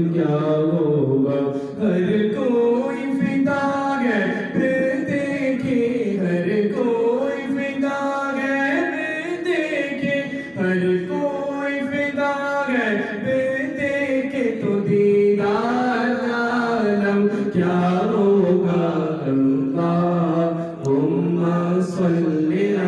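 A solo male voice singing a naat, the devotional praise poem of the Prophet, into a handheld microphone with no accompaniment. The melody is chanted in long held notes that glide up and down, with short breaths between phrases.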